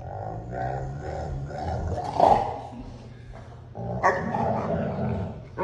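A dog vocalizing in two drawn-out stretches of barking and growling, loudest about two seconds in.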